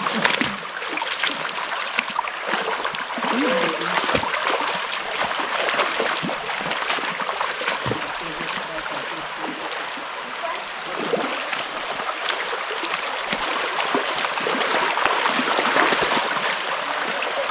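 Creek water rushing and trickling steadily over rocks, with scattered small splashes.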